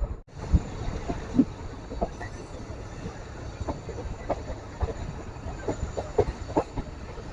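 Passenger train running along the track: a steady rumble with irregular clacks and knocks from the wheels and carriages. The sound starts after a brief break just after the start.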